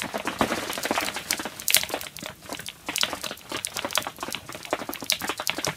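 Wood fire crackling in a TMS 45 steel tent stove: a dense run of irregular sharp pops and ticks.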